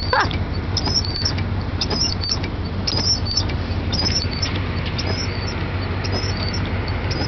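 Engine running steadily with a low drone, with short high-pitched chirps repeating about once a second over it.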